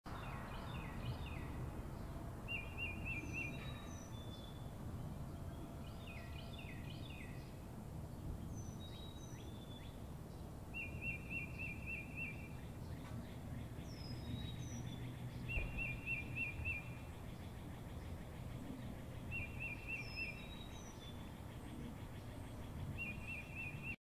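Wild birds singing: one bird repeats a short rapid trill about five times, with other chirps and high, downward-slurred whistles between, over a steady low background noise.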